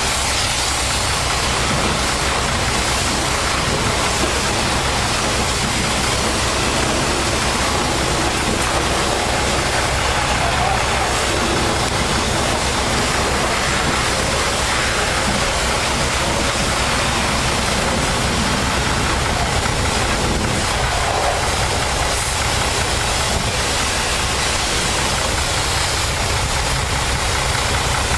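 Water spraying from a hand wand onto a semi-truck tractor, a steady hiss over the steady drone of an engine running.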